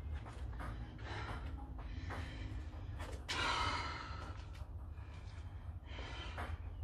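A woman breathing hard from exertion in repeated heavy, gasping breaths, with one longer, louder breath about three seconds in.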